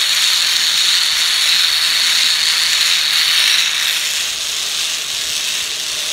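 Zip line trolley pulleys running along the steel cable, with wind rushing past: a loud steady high hiss that eases about four seconds in as the rider slows toward the landing platform.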